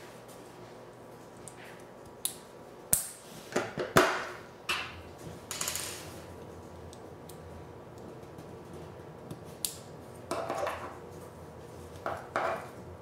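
Small plastic VEX IQ pins and connectors being handled and snapped together by hand: a string of sharp clicks and short rattles, thickest and loudest around four seconds in, with a few more clicks near the end.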